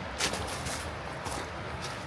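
Footsteps of a person walking on a trail: about four steps roughly half a second apart, over a steady rushing background noise.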